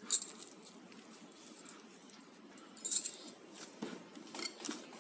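Hands mixing and kneading crumbly flour dough with a little water in a glass bowl: scattered soft rustles and crunches of the dough, with a louder cluster about three seconds in.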